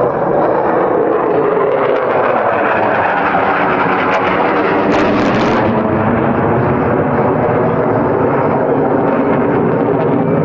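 F-22 Raptor's twin F119 jet engines heard loud and steady during an air-show demonstration flight, picked up on a phone microphone.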